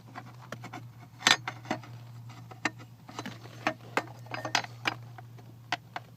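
Irregular light clicks and knocks of metal parts being handled as the upper heater-core line is worked into place, over a steady low hum.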